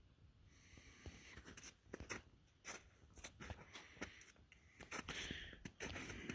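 Faint footsteps crunching on slushy, softening snow and ice, as irregular quiet crunches that come closer together near the end.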